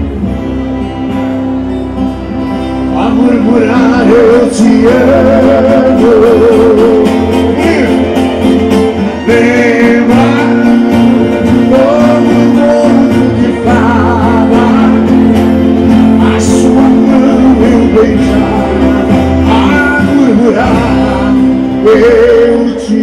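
Live acoustic performance of Rio Grande do Sul regional (gaúcho) music: acoustic guitars playing, with a man's voice singing with vibrato from about three seconds in, when the music grows louder.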